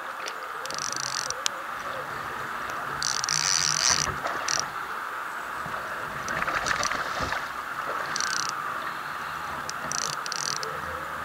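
Creek water flowing steadily, with brief high hissing bursts every few seconds.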